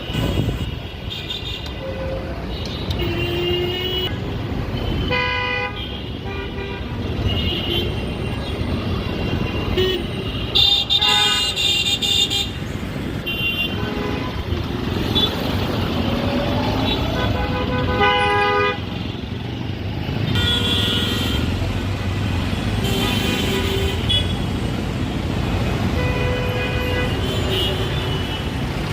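City street traffic: a steady rumble of engines and tyres with many short vehicle horn honks, some in quick runs, throughout.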